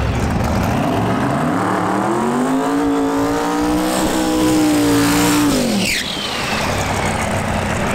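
Twin-turbo Hurst/Olds Pro Mod drag car doing a burnout. The engine revs climb over about two seconds, hold high while the rear tires spin and smoke, then drop off sharply about six seconds in, followed by a falling whistle.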